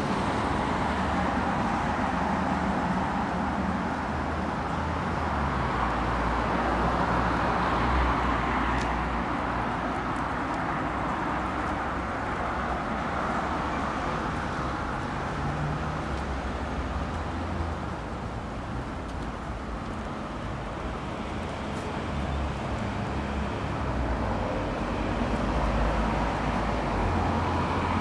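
City street traffic: a steady wash of tyre and engine noise from cars passing on the road alongside, swelling as vehicles go by, loudest about eight seconds in and again near the end.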